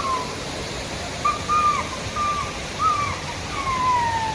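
A bird calling: a run of short whistled notes that each fall in pitch, then a longer, slower falling note near the end, over a steady rush of falling water.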